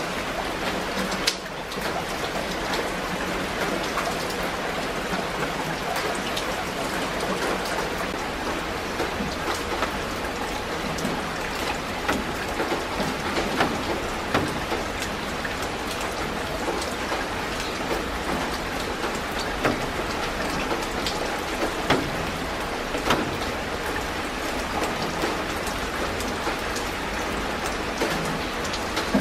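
Steady rain falling on leafy garden plants: a dense, even hiss broken by many separate drop taps. The level dips for a moment about a second in.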